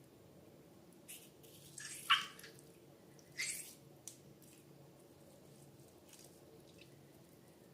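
Slime handled in a bowl: a few short wet squelches and drips in the first half, then only a faint low hum.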